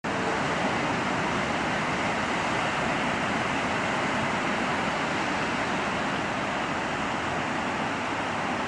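Steady roar of ocean surf breaking, an even hiss with no rise and fall.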